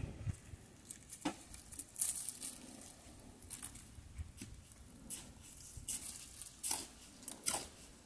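Dry tucum palm leaves rustling and tearing as they are handled and stripped by hand for their fibre: soft, irregular crackles and ticks.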